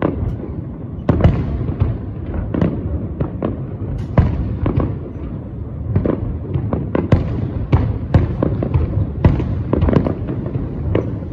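Aerial fireworks bursting: a dense, irregular run of bangs and crackles, each bang trailing off over a steady low rumble.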